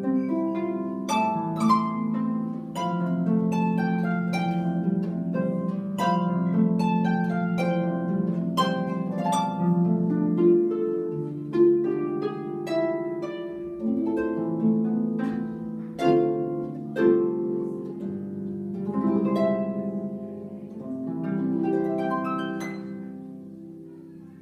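Solo harp playing a slow piece, plucked notes and chords each ringing on and dying away; the playing fades out near the end.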